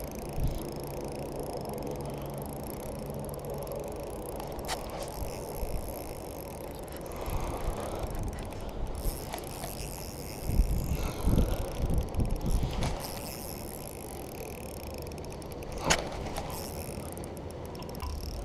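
Spinning reel being cranked steadily, its gears whirring under the load of a hooked king salmon. There are a few sharp clicks, and a run of low handling bumps about two-thirds of the way through.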